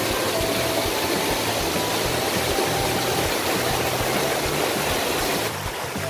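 Waterfall and stream water rushing steadily, with background music with a low repeating beat laid over it. The rushing lessens a little near the end.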